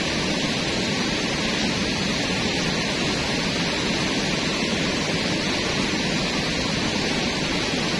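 Steady, loud rushing noise with a rumbling low end, unchanging throughout, with no distinct knocks or other events standing out.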